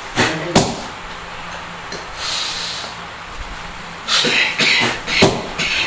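A person coughing: two short coughs just after the start, a breathy exhale about two seconds in, then a run of harsh coughs and hacks near the end.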